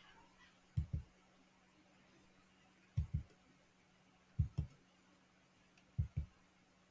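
Computer mouse clicked four times, each a quick dull double click, spaced about a second and a half to two seconds apart, over a faint steady electrical hum.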